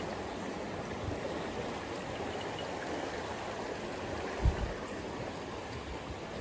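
River water rushing steadily around a raft, with a single low thump about four and a half seconds in.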